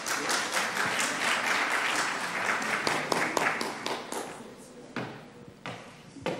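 Audience applauding, the clapping dying away after about four seconds, then a few separate thumps.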